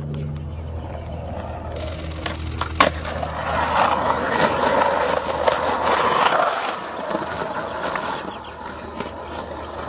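Skateboard wheels rolling over rough concrete, with a single sharp clack about three seconds in. The rolling noise grows louder through the middle and fades near the end.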